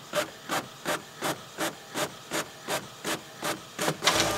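Inkjet printer's print-head carriage shuttling back and forth: an even run of short swishing strokes, nearly three a second, that crowd together near the end. A low steady tone comes in just before the end.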